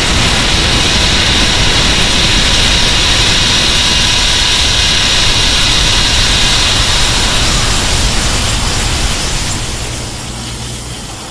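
Edited kaiju sound effect for Shin King Ghidorah: a loud, steady rushing hiss, strongest in the upper middle pitches. It fades over the last few seconds.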